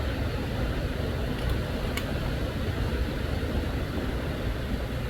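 Steady low rumble and hiss with no clear pitch, with a faint click about two seconds in.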